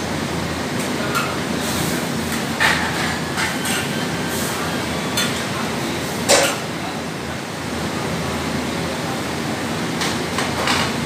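Gas wok burner running with a steady rush under a steel wok of squid simmering in sauce. A metal ladle clinks and scrapes against the wok as it is stirred, with the loudest clank about six seconds in and a few more near the end.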